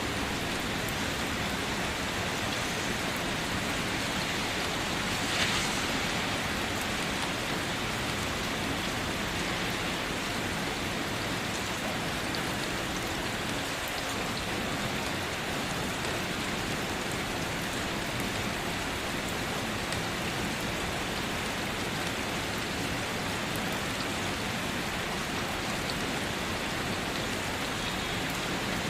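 Steady rain falling on a car, an even patter of drops, with one brief louder splash about five seconds in.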